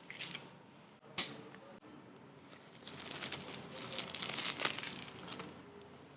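Phone packaging being handled and opened, crinkling and rustling. There are two sharp crackles in the first second or so, then a longer stretch of crinkling in the second half.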